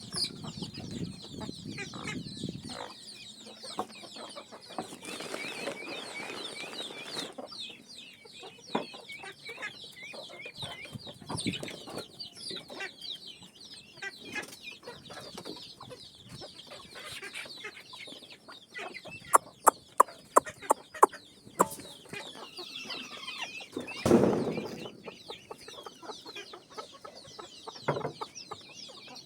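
Free-range desi hens clucking, with many short high calls from the flock. About two-thirds of the way through come about six sharp loud clicks.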